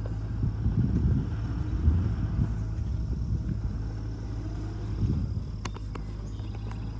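SANY SY35U mini excavator's diesel engine running steadily with a low rumble as the machine travels along. There are a couple of sharp clicks about five and a half seconds in.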